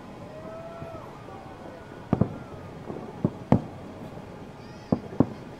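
Fireworks going off: six sharp bangs in three close pairs, about two seconds in, three and a half seconds in and near the end.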